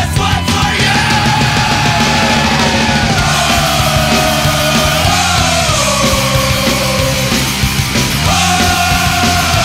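Loud rock music with heavy, distorted guitars over a steady beat.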